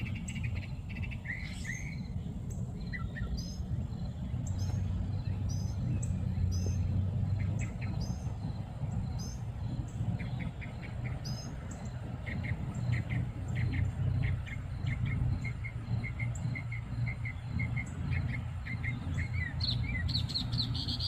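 Small birds chirping and calling, scattered at first, then a quick run of repeated chirps in the second half, over a steady low rumble.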